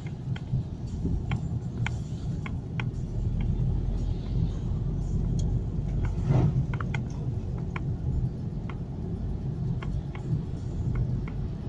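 A car driving along: a steady low rumble of road and engine noise heard from inside, with scattered light clicks or rattles and a brief louder swell about halfway through.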